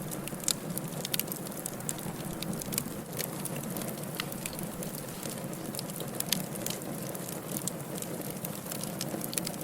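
Firewood burning in a fireplace: a steady low rush of flame with frequent sharp crackles and pops scattered throughout.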